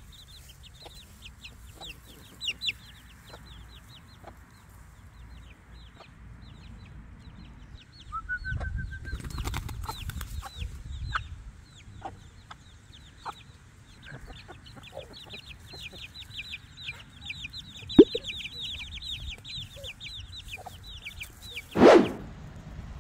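A small flock of chickens with chicks: rapid, repeated high peeping from the chicks throughout, with hens clucking. A low rumble about a third of the way in, and one loud short chicken call near the end.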